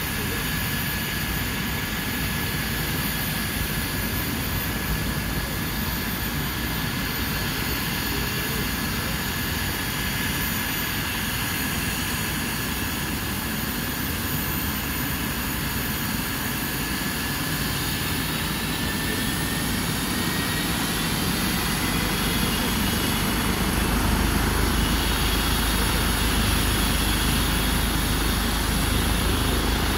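Airbus H135 twin-turbine air ambulance helicopter running on the ground, its turbines whining and its rotor turning. About twenty seconds in, the whine rises in pitch and the sound grows louder as the rotor is brought up to take-off power.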